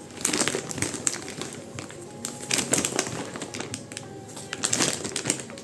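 Plastic packaging crinkling and rustling as a parcel is opened by hand, in three bursts. Soft background music plays throughout.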